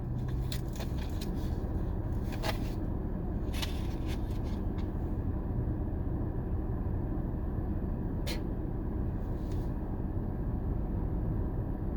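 Steady low rumble of a car interior, with scattered clicks and crinkles from a plastic blister pack being worked open to free a card: several in the first few seconds and two more later on.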